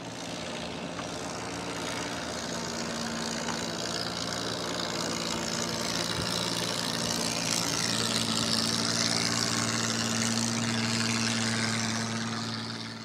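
Small boat engine running steadily, growing gradually louder and falling away near the end, over a steady hiss.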